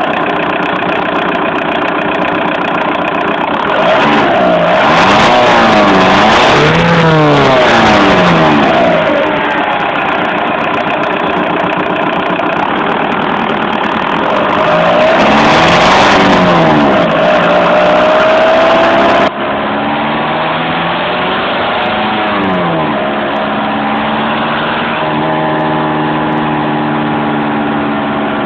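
Volkswagen Golf Mk4 TDI turbodiesel engine revving up and dropping back twice, then running steadily. The owner reports a strange noise from it above about 2000 rpm.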